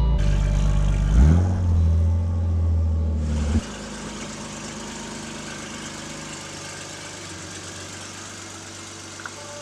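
BMW E39 5 Series engine running, revved once about a second in and held higher, then cut off abruptly; after that only a much quieter steady hiss with a faint engine hum.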